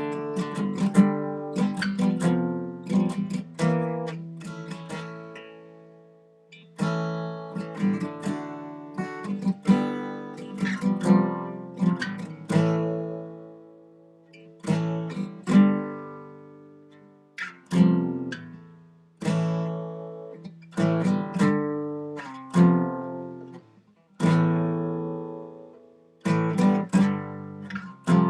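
Solo acoustic guitar playing an instrumental passage, chords struck and left to ring out, in phrases broken by short pauses.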